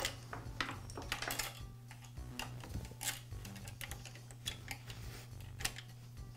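Steel saw chain clinking and rattling as it is handled and fed by hand around the chainsaw's bar and drive sprocket: a string of irregular light metallic clicks.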